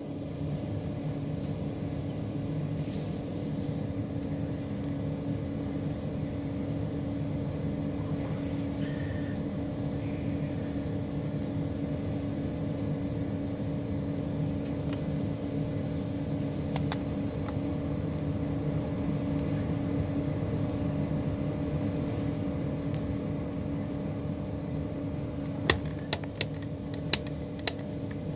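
Steady machinery hum heard inside a tower crane cab, with a run of short, sharp clicks near the end.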